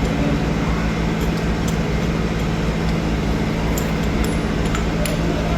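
Steady low machine hum with a few light clicks.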